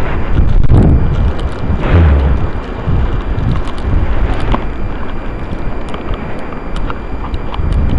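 Blizzard wind buffeting the microphone, a loud low rush that swells in gusts in the first two seconds, then runs on more evenly.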